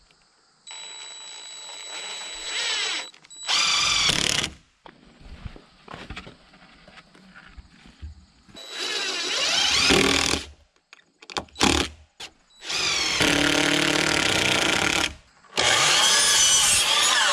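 A cordless DeWalt drill whines as it drives a screw into a trim board, ending in a short loud burst as the screw seats. Later a DeWalt miter saw runs in three long bursts, cutting a board.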